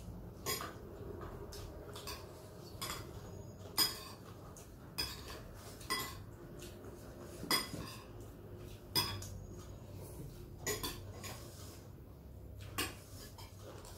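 Spoons and metal chopsticks clinking and scraping against ceramic bowls and plates during a meal, in sharp, irregular clinks about once a second.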